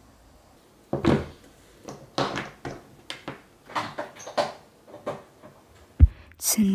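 A string of irregular knocks and clunks, of things being handled and set down on a kitchen counter. A sharp click comes near the end, then acoustic guitar music starts.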